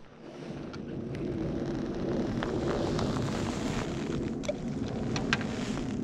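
Wind buffeting the microphone over water lapping at a lake shore, building up over the first couple of seconds, with scattered light clicks and splashes.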